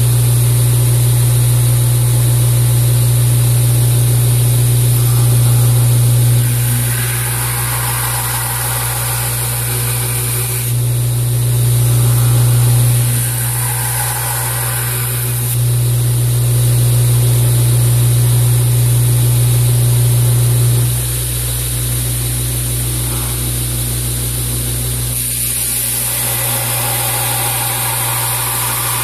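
Wilmont LB1000 2x72 belt grinder running with a steady motor hum while a steel knife blade is ground against the abrasive belt. The grinding hiss swells and fades over several passes, and throws sparks.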